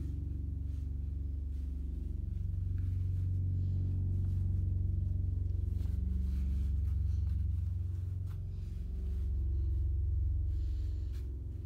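Steady low hum, with faint soft rustles of a baseball cap being pulled on and adjusted on the head.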